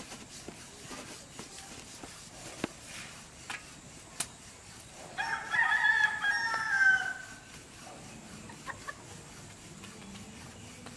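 A rooster crows once, about halfway through: a single pitched call about two seconds long, with a few faint knocks before it.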